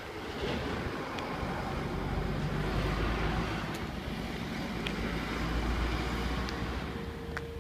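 Low rumble of a road vehicle passing, swelling over a few seconds and easing off near the end.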